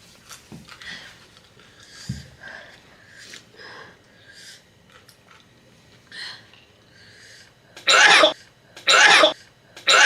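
A person coughing hard three times near the end, about a second apart, in reaction to the burn of an extremely hot Carolina Reaper and scorpion pepper chip. Before the coughs there are only faint small sounds.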